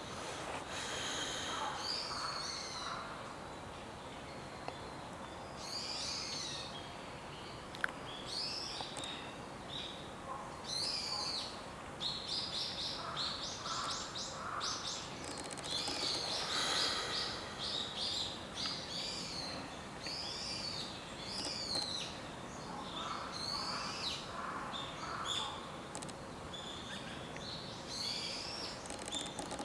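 Small wild birds calling on and off: short high chirps and arching whistled notes, with a quick run of repeated notes a little before the middle. A single sharp click about a quarter of the way in.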